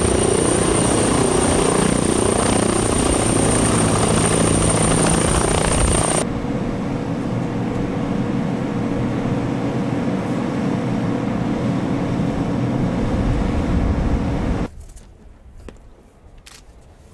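T129 attack helicopter's twin turboshaft engines and rotor running loud and steady with a high turbine whine. After about six seconds the sound changes to a quieter steady engine-and-rotor noise. Near the end it drops away abruptly to a low background with a few faint clicks.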